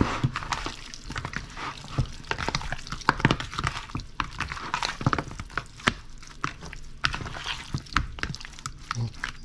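Hands squeezing and tossing raw pork pieces in an oily soy-sauce marinade in a plastic bowl: irregular wet squelches and smacks.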